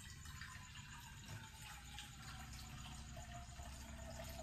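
Water being heated: a faint, steady hiss with a faint tone that slowly slides down in pitch.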